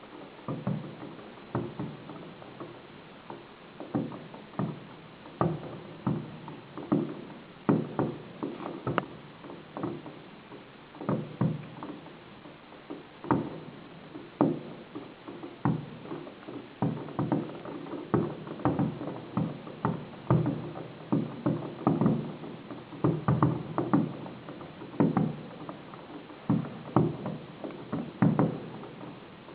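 Fireworks display: an irregular, unbroken series of sharp bangs, often one to three a second.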